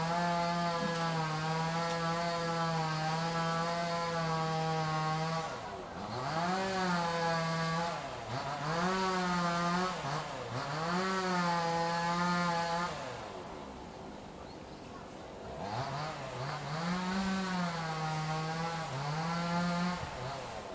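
Engine of a rail-laying machine running at a steady pitch, then its speed dipping and rising again and again as it works. It eases off for a couple of seconds past the middle, then picks up and varies again.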